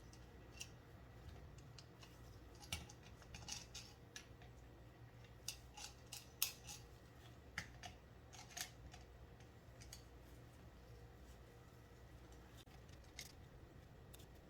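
Faint, scattered sharp metallic clicks and taps from tools handling a motorcycle brake caliper while a piston is worked out. The clicks are irregular, the loudest about six seconds in, over a low steady hum.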